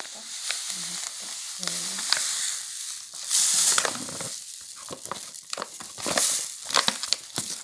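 Coarse granulated sugar pouring from a plastic bag onto halved apricots in a metal pot: a hiss of sliding grains that swells into two loud rushes, about three and six seconds in, with the bag crinkling.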